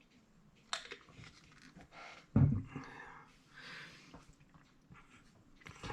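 Small handling noises from working on a clock movement: a sharp click, then a low knock about two and a half seconds in, with breathy exhales.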